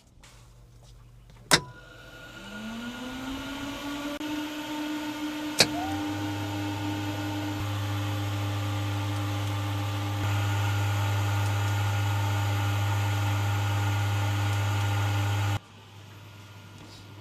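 Aboard an AW119 helicopter, two sharp clicks, each followed by an electric whine that rises in pitch and settles to a steady tone, with a strong steady hum underneath. The pattern is typical of switches turning on electrical systems that spin up. The sound cuts off abruptly near the end.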